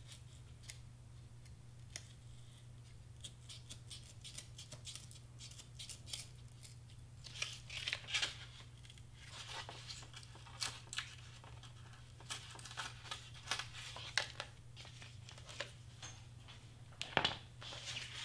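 An Excel Blade craft knife cutting through foam board in short, scratchy strokes, trimming a square opening to size. Near the end comes a single knock as a plastic clock movement is pressed into the opening.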